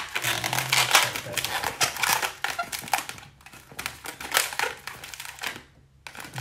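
Inflated latex modelling balloon being twisted into bubbles by hand, a rapid run of squeaks and rubbing of rubber against rubber and fingers, pausing briefly twice.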